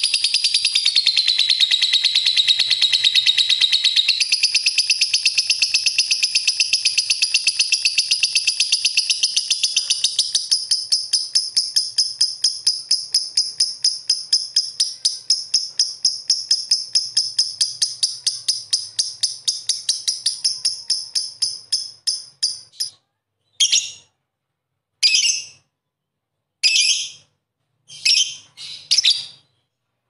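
Lovebird's long ngekek song: a long run of rapid, evenly repeated shrill chattering notes. The run slows and thins, then breaks into short separate bursts from about 23 seconds in.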